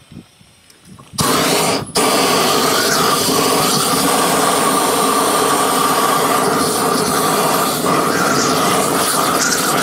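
Propane weed torch going from its low pilot flame to full flame about a second in, then burning with a loud, steady rush of gas flame; it cuts out for an instant shortly after and comes straight back.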